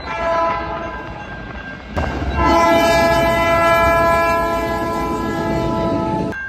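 Train horns sounding over the low rumble of a passing train: a chord horn sounds through the first two seconds, then an abrupt cut brings in a louder, held horn that runs about four seconds and cuts off suddenly near the end.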